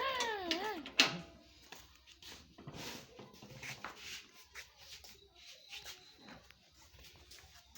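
An animal call whose pitch swoops up and down, ending under a second in. It is followed by a single sharp click and a few faint scattered knocks.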